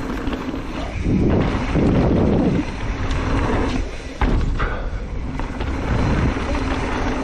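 Mountain bike riding fast down a dirt trail: steady tyre and trail rumble with wind on the microphone, and one sharp knock about four seconds in.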